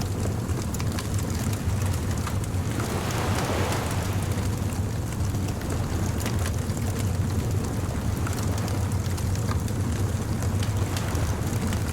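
A bonfire crackling with scattered sharp pops over the steady wash and low rumble of ocean surf, with one wave swelling in about three seconds in.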